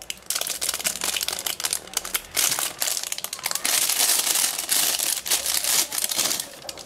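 Clear plastic wrapping crinkling and rustling continuously as hands handle it and pull a silicone-strap watch out of it.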